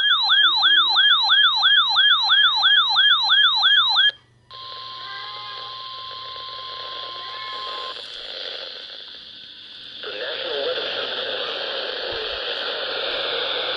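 An electronic siren yelps loudly, its pitch sweeping up and down about three times a second, then cuts off about four seconds in. After a short gap a steady single-pitch weather-radio alert tone sounds for about three seconds over radio static. A synthesized weather-radio voice then begins through the static near the end.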